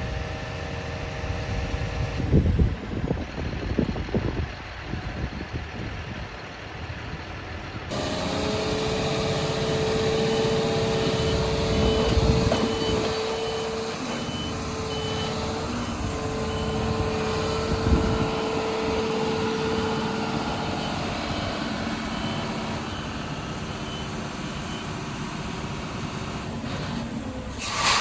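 Heavy truck's diesel engine running while it backs up, with a backup alarm beeping at an even pace from about ten seconds in. A brief loud hiss near the end.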